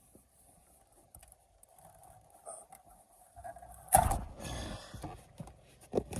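A faint steady hum, then a sharp knock about four seconds in, followed by a second or so of rustling and scraping, and another click near the end.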